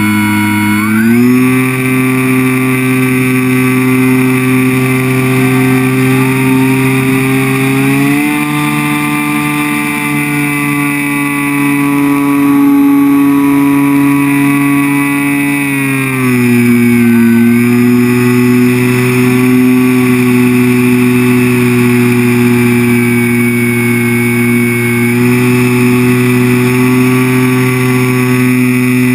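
Electric motor and propeller of a ParkZone Extra 300 RC plane whining in flight, muffled inside the camera's waterproof housing. The pitch steps up about a second in and again around 8 seconds, drops around 16 seconds, and rises a little near the end as the throttle changes.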